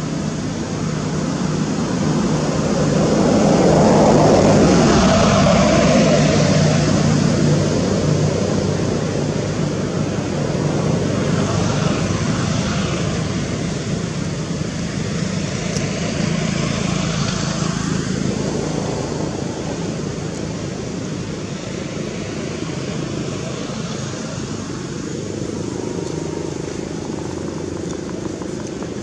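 Steady hum of motor vehicles going by, swelling loudest about four seconds in, with a few more engines rising and fading later.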